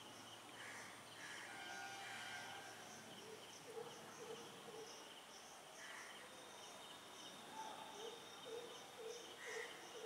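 Faint outdoor ambience of insects trilling and pulsing steadily, with birds calling. There are a few short chirps, and from about eight seconds in a low note repeats about twice a second.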